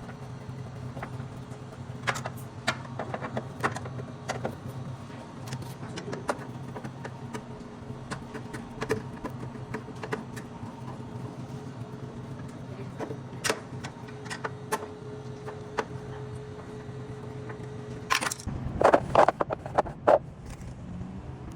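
Scattered metallic clicks and knocks from hand work on the cooler's parts, over a steady low hum. A louder run of clattering knocks comes near the end.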